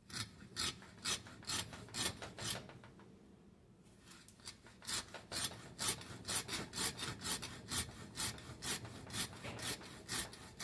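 Hand hacksaw cutting through a chrome-vanadium steel screwdriver shaft, a rasping scrape on each stroke. About two strokes a second at first, a short pause under three seconds in, then quicker strokes to the end.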